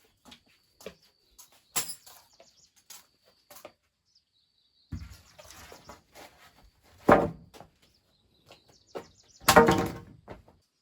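Several irregular knocks and clatters, the loudest about seven seconds in and another near the end. A faint high chirping comes and goes behind them.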